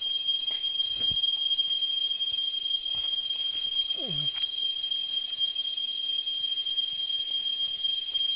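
Steady, high-pitched drone of insects calling, with a few faint clicks and one short sound falling in pitch about four seconds in.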